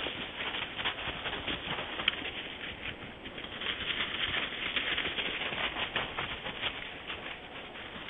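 White-tailed deer running and bounding through dry fallen leaves: a dense crackling rustle of hooves in the leaf litter, busiest a little past halfway.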